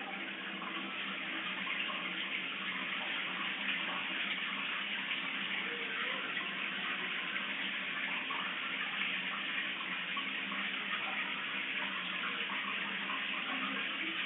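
Water running steadily from a tap, a continuous even rush of water.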